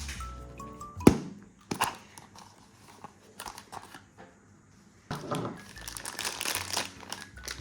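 A surprise ball's wrapping being handled and torn open: a sharp snap about a second in, a quieter stretch, then a long run of dense crinkling near the end. A light music tune plays in the first second.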